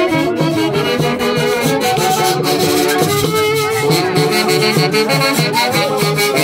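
Brass band music with trombones and saxophones over a steady beat of shaken percussion.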